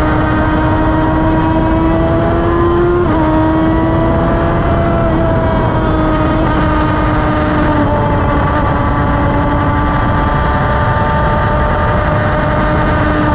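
Formula 1000 single-seater's motorcycle-derived engine running at a steady part-throttle cruise, heard from on board with wind and road rush. The engine pitch climbs slightly, jumps about three seconds in, then sags gradually through the rest.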